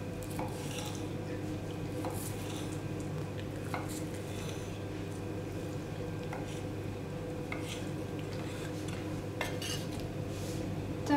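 Kitchen knife slicing orange segments on a wooden cutting board: faint, irregular taps of the blade on the board over a steady low hum. Near the end the board is tipped over a plastic bowl to slide the pieces in.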